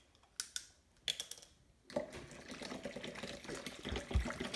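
A few light clicks and knocks, then from about two seconds in water runs steadily into a container for the juice, with a dull low bump near the end.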